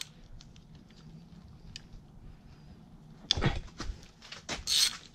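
Hand ratchet with a 5 mm hex Allen bit clicking in short runs as it backs out the solenoid bolts on an automatic transmission's valve body. The clicking starts about three seconds in, after a quiet stretch with a few faint ticks.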